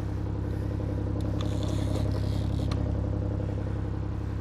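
Sportfishing boat's engine running steadily, a low even drone, with two faint clicks about a second and a half apart.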